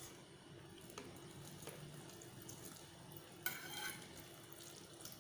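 Faint sound of hot tempering liquid, with mustard seeds and curry leaves, being poured over a dhokla, with light ticks and a brief louder sound about three and a half seconds in.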